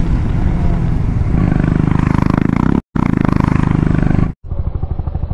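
Motorcycle engine running under throttle, with rush of wind on the helmet camera; the exhaust note grows louder and throbs evenly from about a second in. The sound cuts out completely for a moment twice, near the middle and again later, and is lower and softer after the second cut.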